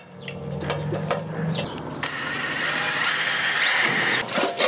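Cordless DeWalt drill running for about two seconds, starting about two seconds in, driving the built-in screw of a Starlink cable clip into the metal flashing under the eave; a few light knocks of handling come before it.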